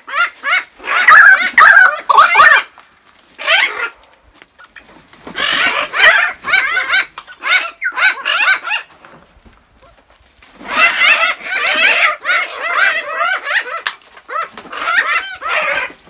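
A flock of pied currawongs calling loudly, many overlapping calls in several bouts with short pauses between; the calls are taken as the birds asking for food.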